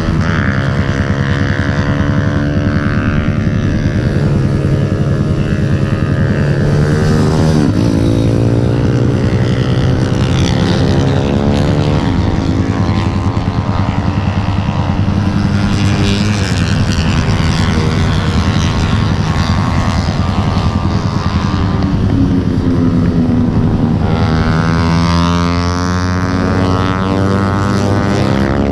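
Motorcycle engines running hard, a dense engine drone whose pitch keeps rising and falling, with sweeps as the revs change.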